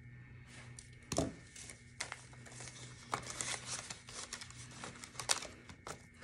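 Paper cash and the pages of a cash-envelope binder rustling and crinkling as the binder is handled and turned to the next section, with a few light clicks and taps, the loudest about a second in.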